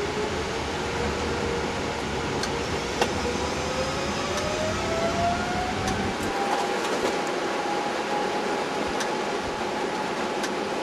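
Boeing 777-200ER cockpit noise: a steady air-conditioning hiss with a jet-engine whine climbing slowly in pitch over several seconds as the turbofan spools up. A few light clicks are scattered through.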